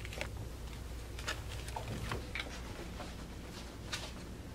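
Steady low room hum with scattered faint clicks and rustles as an instant camera and papers are picked up off a desk and handled.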